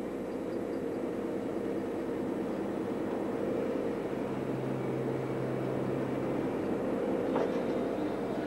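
Diesel locomotive moving slowly at the head of a merry-go-round coal train, a steady engine hum with a lower drone that comes in for a couple of seconds midway. A faint brief squeal or click comes near the end.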